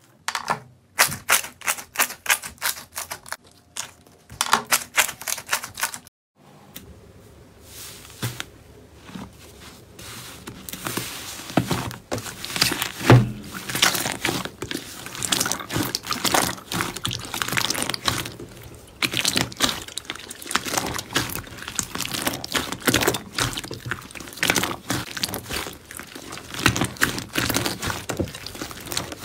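Slime being squeezed and poked by hand, giving rapid crisp clicks and crackling pops. There is a short break about six seconds in, after which the crackling is denser.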